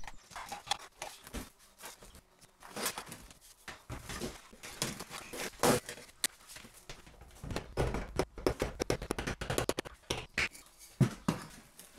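Irregular light knocks, clicks and scraping of hands working 3D-printed plastic molds and refractory cement castings, with a sharper knock about halfway through.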